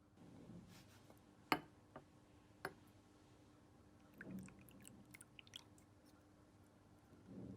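Clear slime being squeezed and stretched by hand: soft wet squishes, three sharp clicks early on, and a run of small crackling pops a little past the middle.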